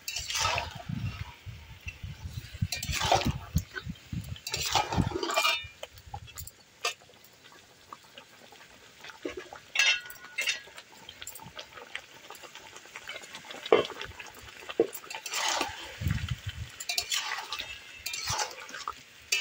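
A spatula scraping and clinking against a cooking pan as chicken and fried potatoes are stirred together. The strokes come in irregular bouts, with a quieter stretch of a few seconds partway through.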